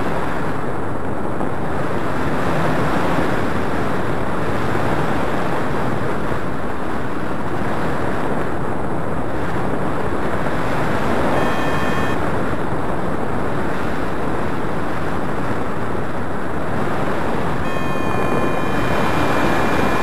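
Steady, loud rush of airflow buffeting the camera microphone on a paraglider in flight. A thin steady electronic tone sounds briefly about halfway through and again near the end.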